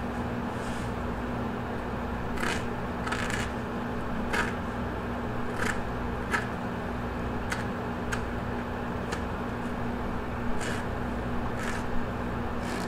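Skinning knife working under a largemouth bass's skin, separating it from the flesh: soft, irregular scraping ticks about once a second over a steady hum.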